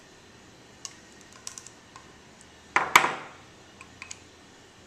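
White PVC pipe and fittings clicking and tapping lightly as they are handled, with a louder short scrape and sharp knock about three seconds in as a PVC corner joint is pressed onto the end of a pipe.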